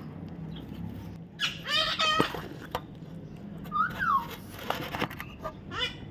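A parrot calling: a harsh call about a second and a half in, a short whistled note that rises and falls around four seconds, and another brief call near the end.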